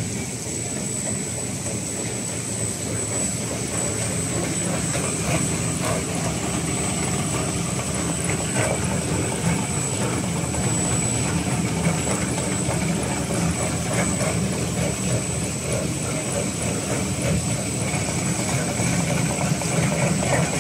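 Needle-shaped bread crumb extrusion line running: a steady machinery drone with a strong low hum and a constant high whine, and a few faint knocks.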